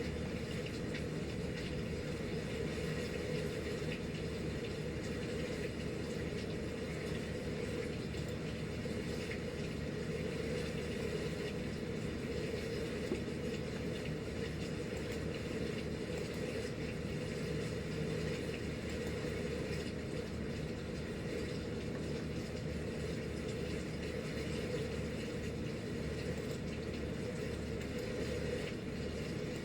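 Steady rushing background noise, even and unchanging, with no music or beat.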